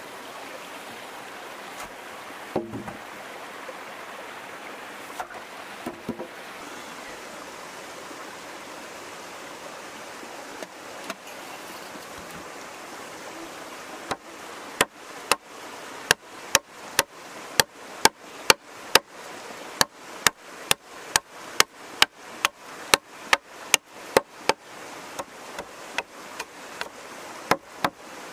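A machete chopping a notch into a log, starting about halfway through as a steady run of sharp strikes about two a second. Before that, a stream's steady rushing with a few knocks as logs are set down.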